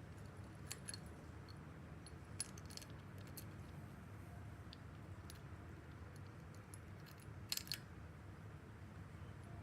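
Small metal parts of a rear brake caliper clicking and clinking as the parking-brake mechanism is worked out of the caliper by hand: a few scattered sharp clicks, the loudest cluster about three quarters of the way through, over a low steady hum.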